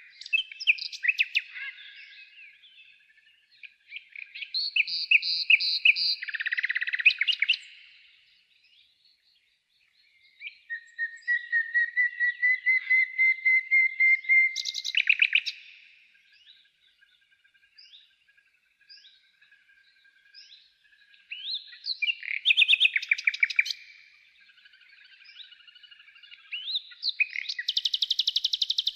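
Songbirds singing in repeated phrases of chirps and fast trills, with one long trilled note slowly rising in pitch partway through.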